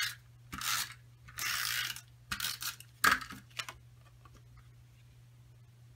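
A tape-runner adhesive dispenser drawn across cardstock several times in short rasping, ratchety strokes, followed by a sharp click about three seconds in.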